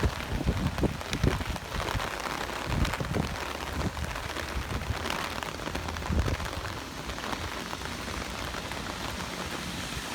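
Rain falling steadily, a continuous hiss, with scattered low thuds during roughly the first six seconds.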